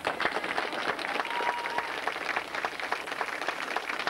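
Audience applauding: many hands clapping steadily and unevenly.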